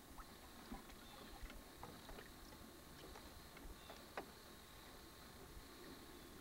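Near silence: faint scattered ticks and light knocks, the clearest about four seconds in, over a faint steady high hum and hiss.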